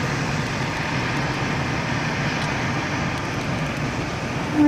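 Steady rumble of a train rolling through a railway station. A locomotive horn starts sounding right at the very end.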